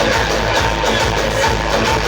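Loud electronic dance music with a steady, heavy beat, played through a large DJ sound system.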